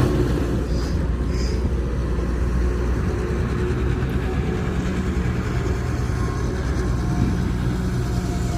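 Excavator's diesel engine running steadily, a low, even engine drone with no sudden changes.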